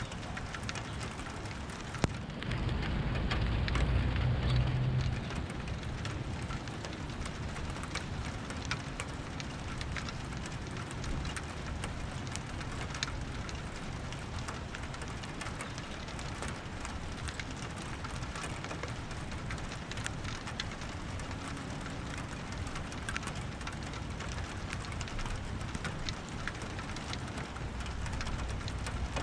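Steady rain with many small drop ticks. A sharp tick about two seconds in is followed by a low rumble of thunder lasting about three seconds.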